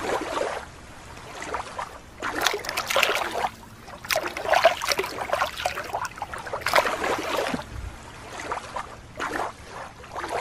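Water splashing and dripping as a small plastic toy dolphin is dipped and swished in shallow lake water, in several uneven bursts.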